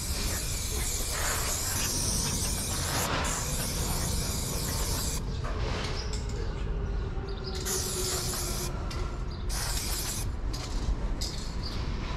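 Aerosol spray paint can hissing as paint is sprayed onto a metal roller shutter. One long continuous spray runs for the first few seconds, then a string of shorter spurts follows with brief breaks between them.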